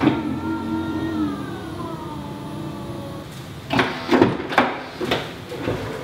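Split tailgate of a Toyota LandCruiser 200 being opened: a steady whine slowly falling in pitch, then a run of sharp clunks and bangs about four to five seconds in.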